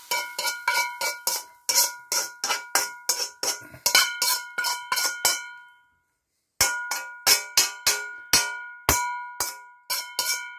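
A metal utensil knocking and scraping stir-fried food out of a metal wok. The wok rings with a bell-like tone at each knock, about three knocks a second. There is a brief pause just before the middle, then the knocking resumes.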